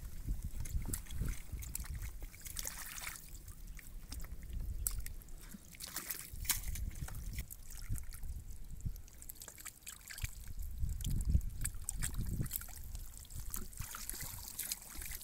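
Hands sloshing and squelching through shallow muddy water and mud, groping for fish: irregular small splashes, drips and wet slaps.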